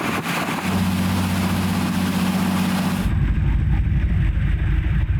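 An engine running steadily with a low hum over a hiss; about three seconds in the hiss drops away and a heavier low rumble takes over.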